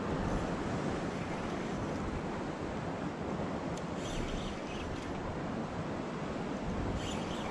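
Steady wind rushing over the microphone along with the wash of sea water, with no distinct events standing out.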